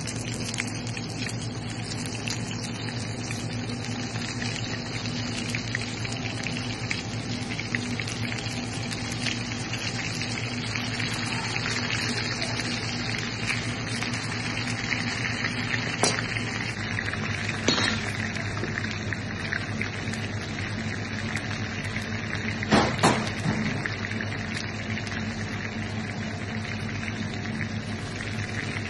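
Hot butter sizzling and bubbling around sesame-crusted fish pieces in an earthenware dish: a steady dense crackle over a low hum. A few sharp clicks cut through it, about halfway through and again a few seconds later.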